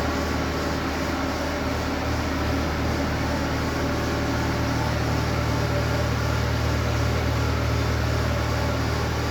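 Skid steer loader engine running steadily, a constant low drone that gets a little heavier about halfway through.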